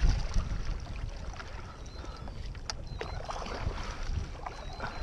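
Water and wind noise around a kayak, with a low rumble that is strongest at first. Two light knocks come a little past halfway.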